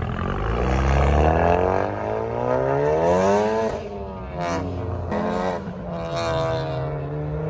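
Car engines accelerating hard as cars pull away. The engine note climbs steadily for about three and a half seconds, drops suddenly at a gear change, then climbs again twice more, with another drop about five seconds in.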